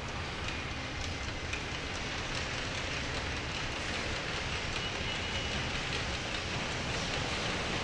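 Steady machinery noise of a car assembly line, a continuous hiss and hum with faint scattered clicks and a faint high tone briefly in the middle, as a car-body carrier moves along its conveyor.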